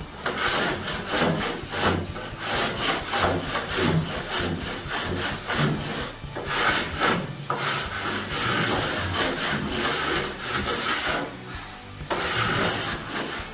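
Hand rasp scraping back and forth along the cut edge of a plaster ceiling, trimming off what sticks out. The strokes come quickly, about three a second, with short breaks about halfway and again near the end.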